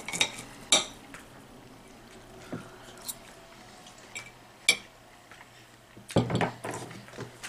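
Knife and fork clinking against a ceramic plate while cutting cooked pigeon breast: a few sharp clinks, the loudest under a second in and about halfway through, with quiet stretches between. A brief louder burst of handling noise comes near the end.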